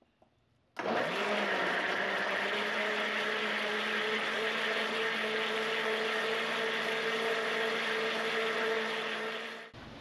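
Mondial countertop blender's motor switching on about a second in and running steadily, blending a thick batter of milk, eggs and flour. Its pitch rises slightly as it comes up to speed, and it cuts off near the end.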